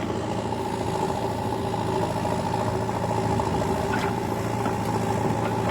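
Diesel engine running steadily at an even speed.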